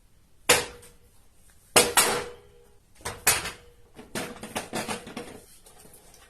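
A run of sharp knocks and clatters from hard objects being handled. There are single knocks about half a second in and just before two seconds, a double knock past three seconds, then a quicker rattle for about a second and a half, some of them leaving a brief ring.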